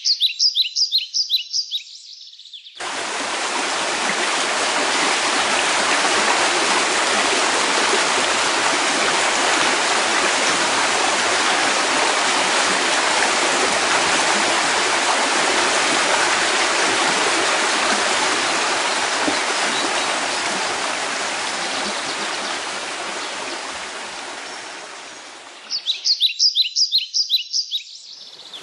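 Rushing water, a steady even rush that starts about three seconds in and slowly fades toward the end. A rapid run of high bird chirps comes before it at the start and again near the end.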